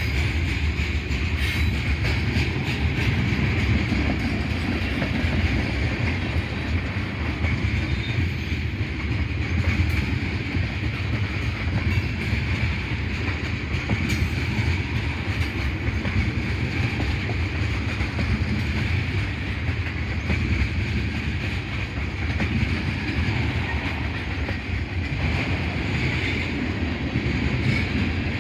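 Freight cars of a mixed train (covered hoppers, tank cars, loaded centerbeam flatcars) rolling past on steel rails: a steady rumble of wheels with occasional faint clicks.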